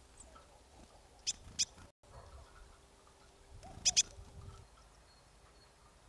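Marsh tit calling: two pairs of short, sharp, high notes, the first pair about a second in and the second about four seconds in.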